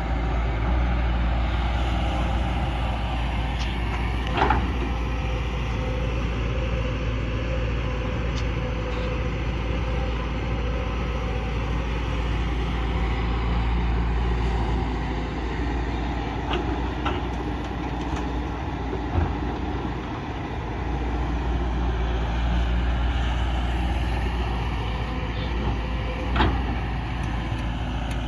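Large excavator's diesel engine running steadily under work, with a few sharp knocks at intervals.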